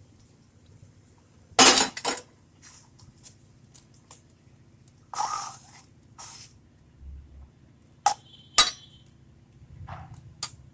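Metal ladle clinking and knocking against a steel kadhai as boiled kidney beans are tipped into the masala and stirred. It is a series of separate clinks, the loudest about two seconds in.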